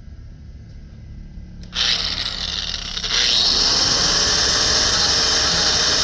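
Power grinder switched on a little under two seconds in, then growing louder about a second later and running steady as it grinds aluminum.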